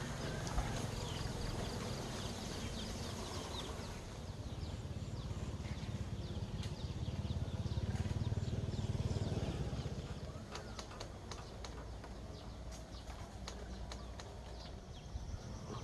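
Rural outdoor ambience: wind buffeting the microphone as a low rumble that swells about halfway through, with birds chirping in the first few seconds and scattered short clicks later on.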